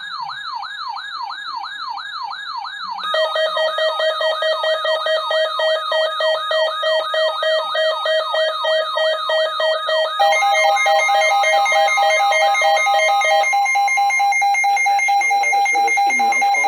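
Electronic siren wailing up and down about twice a second. About three seconds in a pulsing alarm tone joins it, and about ten seconds in a steady alert tone. The siren stops near the end, leaving the steady tone.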